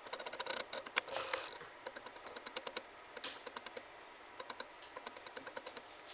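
A Ragdoll kitten playing on a tile floor: irregular rapid light clicks of claws and a small toy on the tiles as it pounces and bats, with brief scuffs of scrabbling about a second in and after three seconds.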